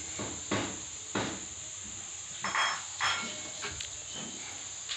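Steady high-pitched chirring of insects, with a few sudden knocks and clinks of handled objects; the loudest clink comes about two and a half seconds in.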